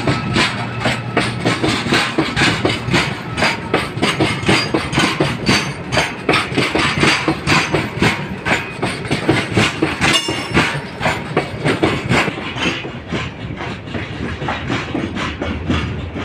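Freight train of open-top wagons rolling past close by, the wheels clattering rhythmically over the rail joints with a steady run of clicks and knocks. The clatter eases a little in the last few seconds.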